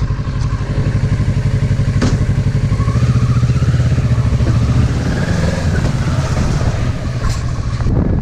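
Kawasaki Versys motorcycle engine running steadily with a fast, even firing pulse, getting a little louder about three seconds in.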